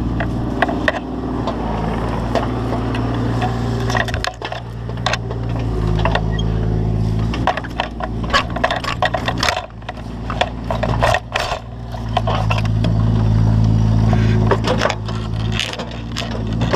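Excavator engine running steadily, getting louder about two-thirds of the way through, under many sharp cracks and knocks of wood splintering and breaking.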